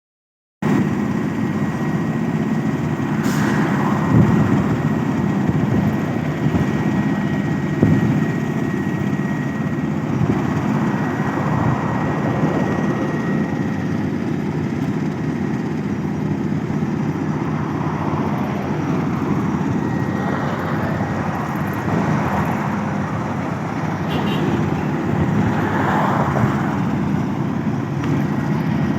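Heavy road-construction machinery running steadily: a continuous low engine rumble that swells gently now and then.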